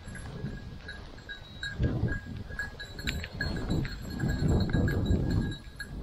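A bird dog's bell collar ringing in irregular little jingles as the dog hunts through the cover. The louder sound is the low rustle and thump of footsteps through brush.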